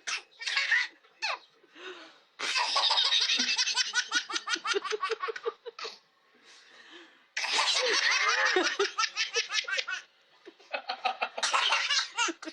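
Baby laughing in long fits of rapid, breathy belly laughter, with two long bouts and shorter bursts of laughing between them.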